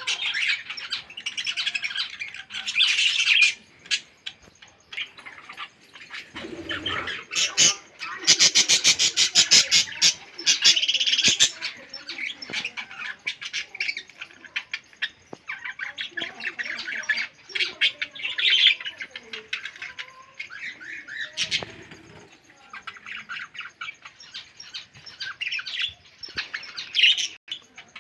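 Caged pet birds chirping and chattering in a dense, high-pitched chorus of rapid calls, with a louder stretch about eight to eleven seconds in.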